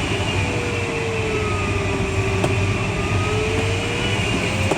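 Steady rush of air over the Schleicher ASK21 glider's canopy in flight, with a low hum beneath. Through it runs a thin continuous electronic tone, most likely the variometer's audio, which sags slowly in pitch and rises back near the end.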